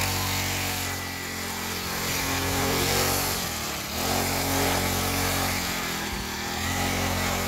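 Mini bike's small gasoline engine running under throttle, its pitch dropping twice as the throttle is eased off, about four and six seconds in, then picking back up.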